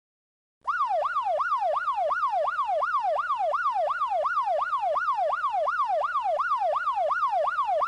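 Police car siren sound effect in a fast yelp: a wail sweeping up and down about three times a second. It starts under a second in and cuts off abruptly.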